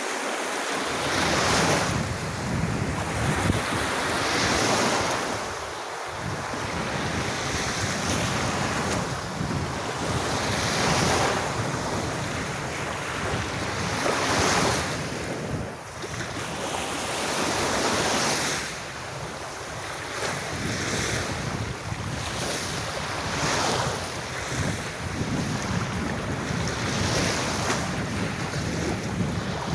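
Gentle sea waves breaking on a sandy beach, a continuous wash of surf that swells and eases every few seconds.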